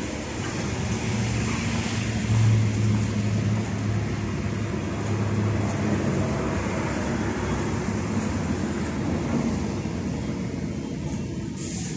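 An engine running with a steady low hum that swells a little in the middle and eases off near the end.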